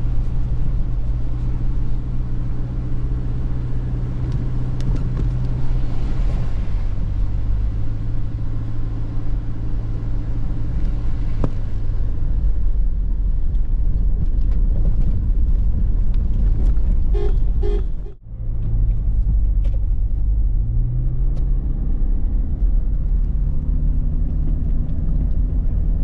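Car engine and tyre noise heard from inside the cabin while driving on a gravel track, a steady low hum whose engine note drops about six seconds in. Near the end it breaks off briefly and resumes, the engine note rising.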